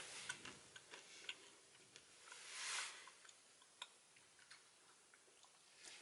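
Near silence with faint, scattered ticks and clicks, and a brief soft rush of noise about two and a half seconds in.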